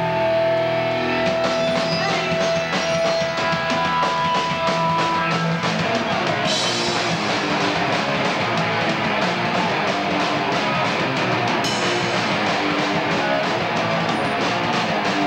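A live rock band plays loud, with distorted electric guitar and a drum kit. For the first few seconds the guitar holds long notes over steady drum hits. About six seconds in the full band comes in harder, with cymbals crashing.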